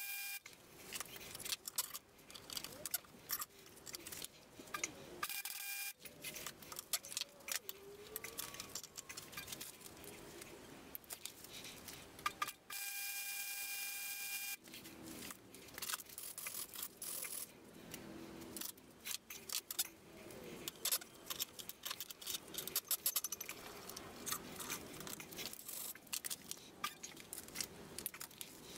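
MIG welder arc crackling as two steel pieces are welded together, in runs of irregular sputtering crackle. The crackle stops for a couple of short pauses, where a faint steady whine is left.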